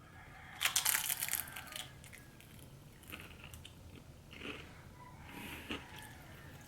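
A person biting into and chewing crunchy food close to the microphone: a burst of loud crunching about half a second in, then quieter intermittent crunches.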